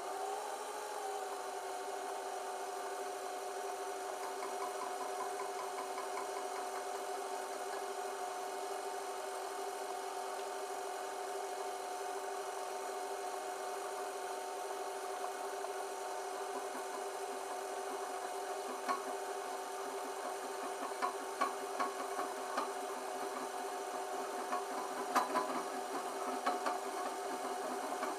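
Metal lathe running with a steady whine while a tool bit cuts along a spinning copper pipe. From about two-thirds of the way in, irregular clicks and scraping from the cut grow louder.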